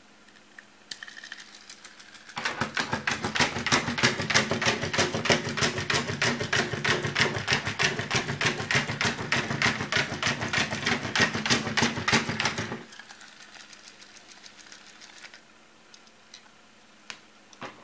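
Battery-powered Chubby Puppies Boston terrier toy walking on a tabletop: its small motor runs with a rapid, even clacking of the plastic legs for about ten seconds, then stops suddenly.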